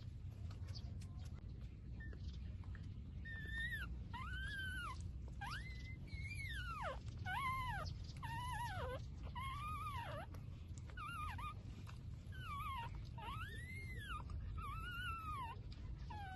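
Puppy whining: a string of about a dozen high whines starting about three seconds in, each rising and then falling in pitch, over a low steady rumble.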